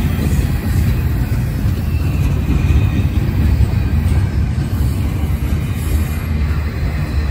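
Norfolk Southern double-stack intermodal freight train rolling past at close range: a steady low rumble of its container well cars on the rails.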